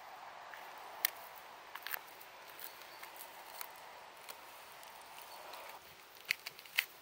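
Oyster mushrooms being picked by hand off a log and dropped into a basket: a few sharp snaps and clicks, about a second in, around two seconds, and a cluster near the end, over a faint steady hiss that stops about six seconds in.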